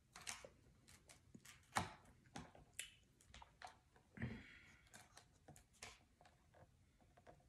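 Faint, scattered mouth clicks and smacks of someone chewing food, with a slightly longer wet smack about four seconds in; otherwise near silence.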